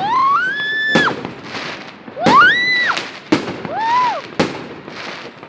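New Year fireworks going off. There are several sharp bangs, with rising, pitched whistles between them; one whistle cuts off at a bang about a second in.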